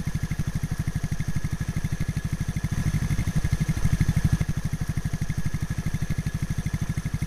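Skid-steer loader's engine running steadily under load, with a rapid, even low pulsing and a faint steady high whine above it.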